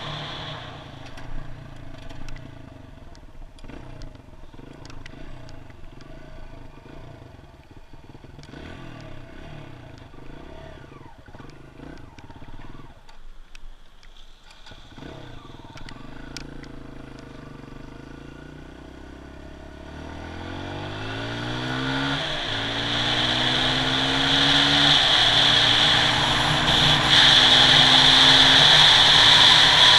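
Kawasaki KLX140G dirt bike's single-cylinder four-stroke engine at low revs with some clatter as the bike rolls slowly, then accelerating hard. Its pitch climbs and drops back at each upshift, three times in the second half, while wind noise on the microphone grows with speed.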